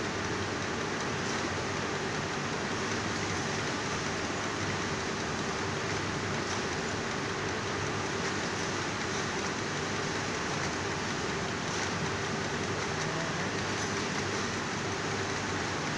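Yarn winding machine running steadily as it unravels defective knit fabric and winds the yarn back onto its drums: an even whirring hum with a faint steady tone.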